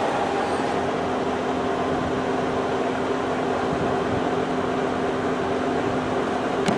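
Steady machine hum with a few constant held tones, like a motor or fan running, and a brief click near the end.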